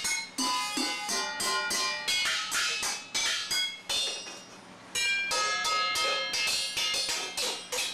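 Toddler drumming on stainless steel pots, pans and a kettle with wooden spoons: quick, uneven strikes, about four a second, each ringing metallically. There is a short lull about four seconds in before the drumming picks up again.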